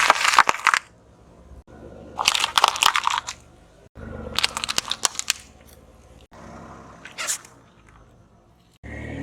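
Crunchy objects being crushed under a car tyre: four bursts of crackling and crunching, the first three about a second each and the last one brief.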